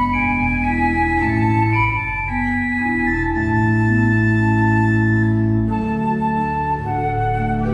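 Organ playing slow music in held chords, with a bass line, inner parts and a melody on top, the notes changing every second or two.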